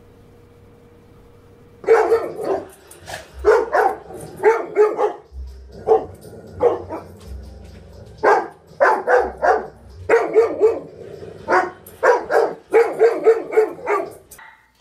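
Golden retrievers barking repeatedly and excitedly, often in quick runs of two to four barks. The barking starts suddenly about two seconds in, after a low steady hum.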